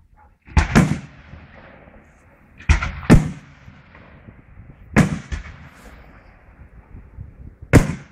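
Aerial firework shells bursting in a display: about six loud bangs, some in quick pairs, each trailing off in a long echoing tail.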